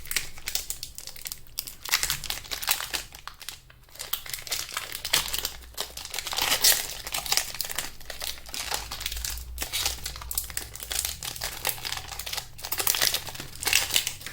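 A foil Pokémon booster pack wrapper crinkling and being torn open by hand. The dense crackling stops near the end.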